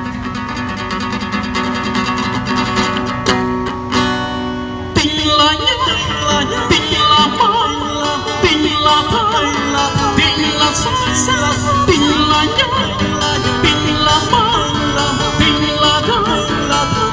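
Live acoustic cover band: two acoustic guitars playing a held chordal intro, then from about five seconds in a man sings over the strummed guitars with a rhythmic beat.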